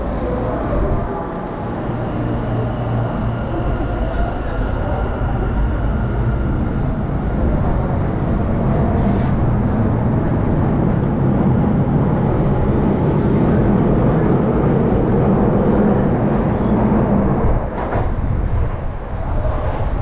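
Electric commuter train pulling out along the platform. Its motor and wheel noise builds, is loudest in the middle, then falls away sharply a little before the end.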